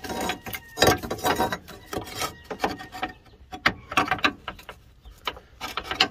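Irregular metallic clicks and knocks of hand tools working on engine-mount fittings.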